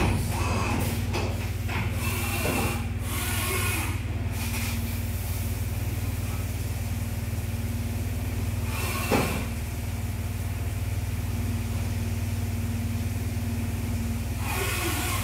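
Haas VF-3SS CNC vertical mill drilling and tapping M6x1.0 holes under flood coolant: a steady machine hum with the spray of coolant. Short noisy bursts come in the first few seconds, once about nine seconds in, and again near the end.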